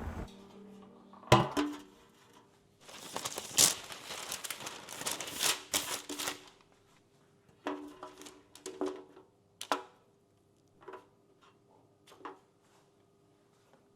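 Objects being handled in a small room: a sharp knock, then a few seconds of crinkling or rustling like packaging, then scattered light taps and clicks.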